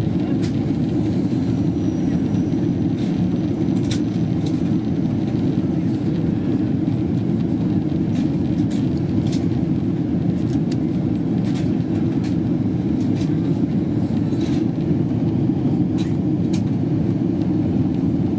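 Steady cabin roar of a Boeing 777 in flight, the engine and airflow noise heard from a window seat, with a few faint clicks over it.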